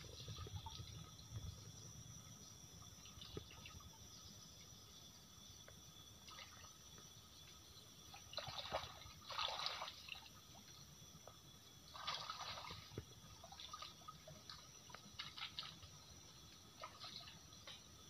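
Faint trickling and small splashes of shallow stream water, with a few louder splashes around the middle.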